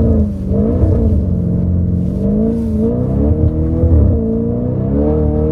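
Audi RS5's 450-horsepower V8 pulling the car along a snowy road, its engine note climbing and dropping several times as it accelerates and eases off, heard from inside the cabin.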